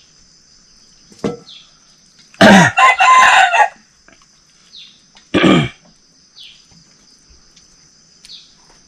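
A rooster crowing: one long multi-part crow about two and a half seconds in, then a shorter loud call about two seconds later.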